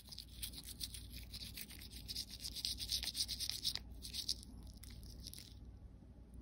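Toothbrush bristles scrubbing a Shih Tzu's teeth: quick, scratchy back-and-forth brushing strokes that stop about a second before the end.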